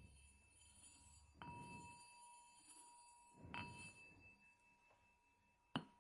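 Faint small metal bell struck twice, about two seconds apart, each stroke ringing on as a clear high tone. A sharp click near the end is the loudest sound.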